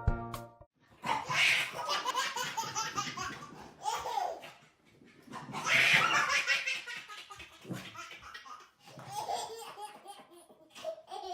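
A person laughing hard in three long bouts, with short pauses between them.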